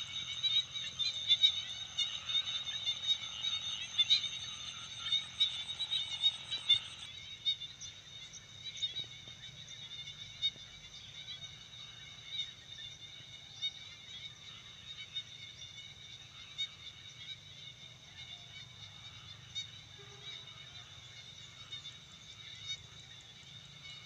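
Rice paddy ambience: a frog chorus with steady high trilling and frequent short calls. It drops quieter about seven seconds in.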